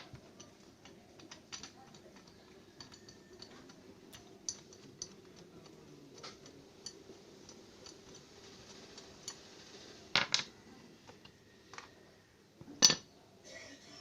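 Light metallic clicks and clinks of hand tools on the parts of an electric hand planer being taken apart, scattered through, with a louder pair of knocks about ten seconds in and another sharp knock near the end.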